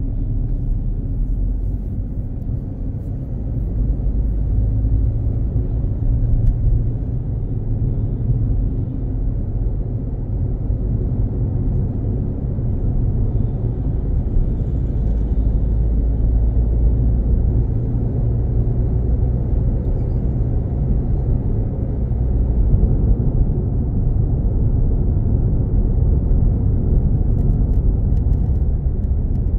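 Steady low road rumble of a car driving at highway speed: tyre and engine noise with no sharp events.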